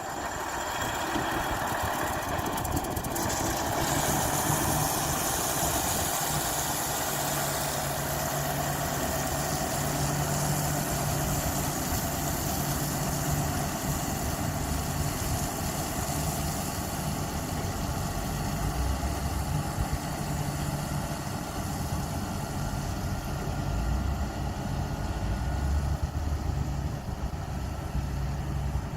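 Diesel engine of heavy construction machinery running steadily, its low rumble growing stronger in the second half.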